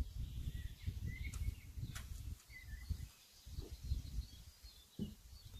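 Outdoor ambience: faint, short bird chirps over a low, uneven rumble on the microphone.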